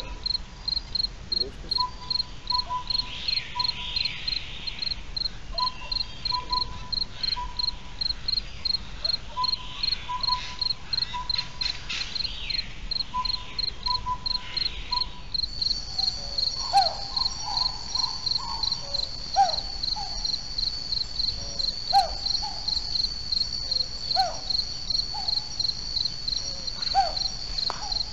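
Crickets chirping in a fast, even, high-pitched pulse. About halfway through this gives way to a continuous high trill, with short lower calls repeating every two to three seconds.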